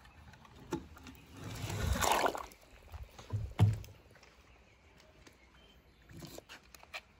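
A toy monster truck splashing into water, a rush of water noise that swells and fades over about a second. A few sharp plastic knocks follow, the loudest about halfway through, with light clicks of toy trucks handled on a wet board near the end.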